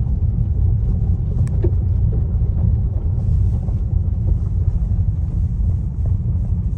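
Steady low rumble of a vehicle driving along.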